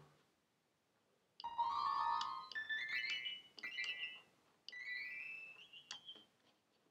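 A run of short synthesized MIDI notes played by drawing with the mouse in a Max patch: left-to-right position sets the pitch and up-down position sets the velocity. The notes begin about a second and a half in, are high-pitched and climb higher partway through, then stop a little before the end.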